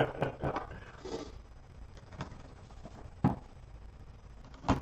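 Sparse light clicks and taps of hands handling cards, a small cardboard box and a utility knife on a tabletop, with a sharper click near the end.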